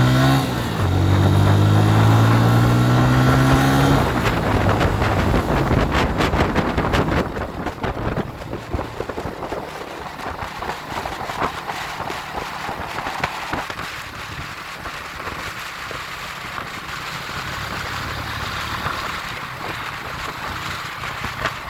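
Motorcycle engine accelerating, its pitch rising, with a gear change just after the start. About four seconds in the throttle closes and the engine falls back to a low steady run under wind noise on the microphone.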